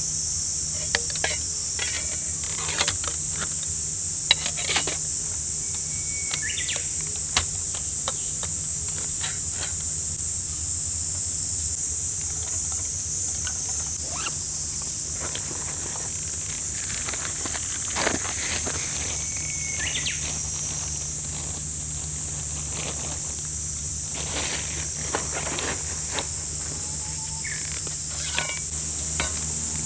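Steady high-pitched insect chorus of summer, with scattered sharp clicks and knocks and a low steady rumble underneath.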